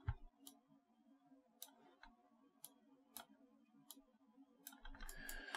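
Several faint, scattered clicks of a computer mouse over near-silent room tone with a faint steady hum.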